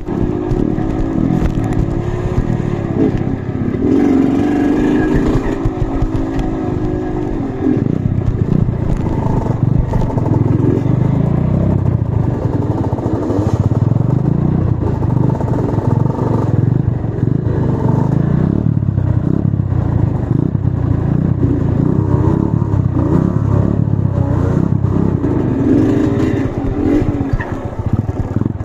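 Trail motorcycle engine revving hard and unevenly, its pitch repeatedly rising and falling, with clattering and scraping over rough ground.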